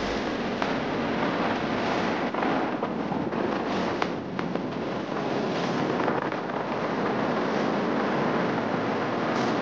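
Wind rushing over the microphone of a moving motorcycle: a loud, steady rush of noise, with a couple of sharp ticks about four seconds in.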